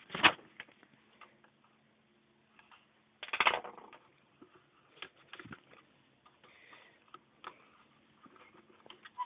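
Plastic parts of a fuel pump module being handled and worked on: scattered clicks and knocks, with a sharp click just after the start and a short scraping rattle about three seconds in.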